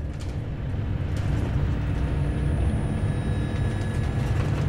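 Car interior noise from the back seat: a steady low road-and-engine rumble that grows louder about a second in, as if the car is speeding up.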